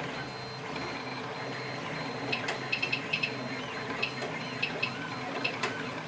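3D printers running: a steady mechanical whir of the motors, with a run of sharp, irregular clicks and pops starting about two seconds in.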